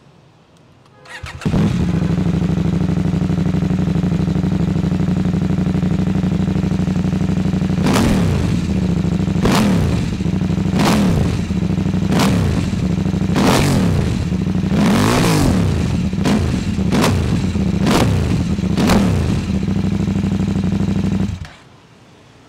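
KTM 790 Adventure's parallel-twin engine with an aftermarket Akrapovič exhaust: started about a second in, idling, then blipped with the throttle about ten times from around eight seconds in, and switched off about a second before the end.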